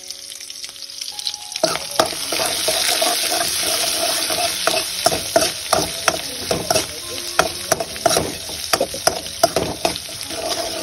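Oil sizzling in a cooking pan, with a spatula clicking and scraping against the pan as the food is stirred; the sizzling starts about a second and a half in, after soft background music.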